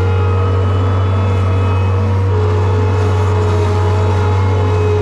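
John Deere 675B skid steer engine running steadily as the machine tries to climb a manure pile, with a steady whine that steps slightly lower about two seconds in.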